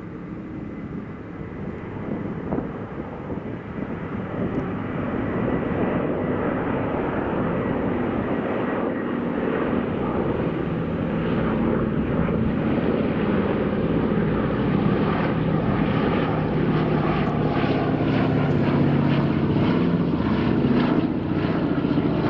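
Four Wright Cyclone radial engines of a B-17 Flying Fortress, with the radial engines of C-47 Dakotas in formation, droning as the aircraft fly by. The drone grows steadily louder as the B-17 passes close overhead.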